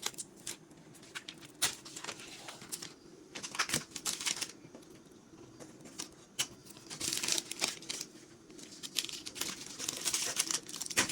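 Crinkling and rustling in a small room, with scattered light clicks.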